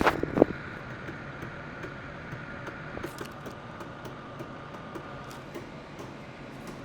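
Computer mouse and keyboard clicks, a few sharp ones at the start and then light scattered ones, over a steady machine hum with a faint high whine.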